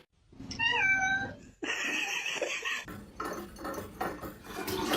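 A cat meows once, a short call with a bending pitch about half a second in, followed by a stretch of noise.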